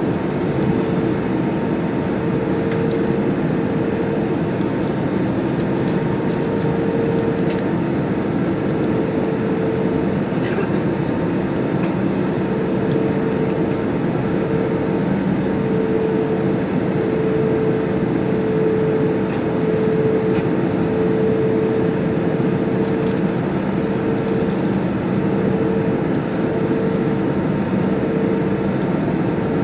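Steady cabin noise inside an Airbus A320 on approach: the CFM56 engines drone under a rush of airflow, with a steady low hum.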